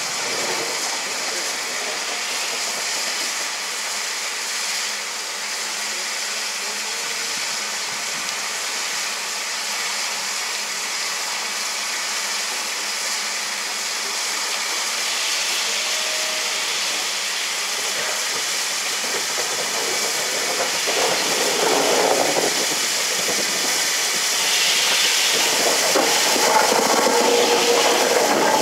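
Steam locomotive 61994 The Great Marquess, a three-cylinder LNER K4 2-6-0, running light engine: a steady hiss of steam with its wheels on the rails. It grows louder as the engine draws near, loudest near the end as it passes close by.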